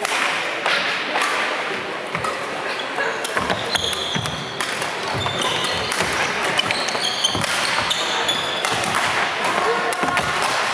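Badminton rally on a wooden sports-hall floor: shoes squeaking in short high squeals as the players move, and sharp clicks of rackets hitting the shuttlecock, over background chatter.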